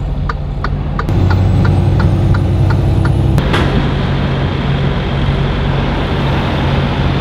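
Semi truck engine running, growing louder about a second in, under a steady ticking of about three a second. About three and a half seconds in the ticking stops with a sharp burst of air, followed by a steady hiss.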